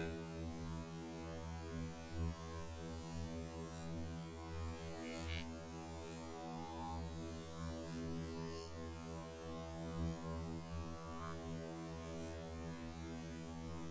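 Steady low electrical mains hum, with a few faint clicks.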